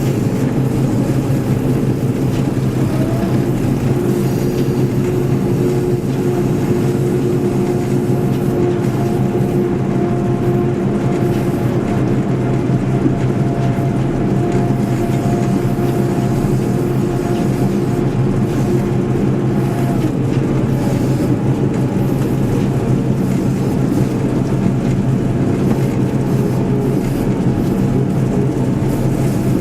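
John Deere 1075 combine harvester running steadily while combining barley: a constant engine and machinery drone. A higher whine from the machinery joins about four seconds in and eases off after about thirteen seconds.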